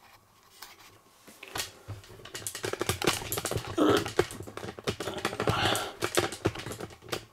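Rapid, irregular clicking and rustling handling noise, like plastic being handled close to the microphone, starting about a second and a half in.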